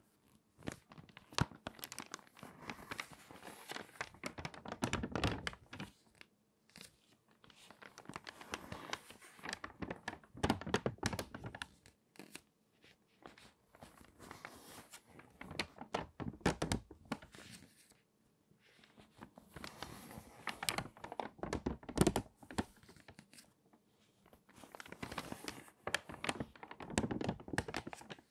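Stiff, water-damaged magazine pages crinkling and crackling as they are turned by hand, about five page turns with short pauses between them.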